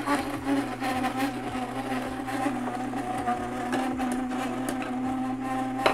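Electric vertical slow juicer running with a steady motor hum as produce is fed in, with small crackles of fruit and vegetable pieces being crushed and a sharp knock near the end.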